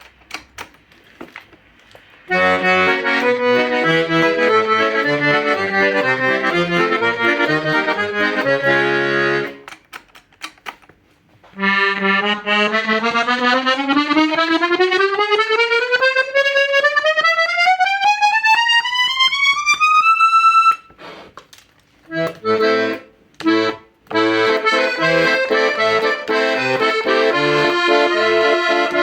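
Hohner Concerto II piano accordion being played: a passage of melody over bass chords, then a slow rising scale note by note up to a held high note, then more melody with bass accompaniment.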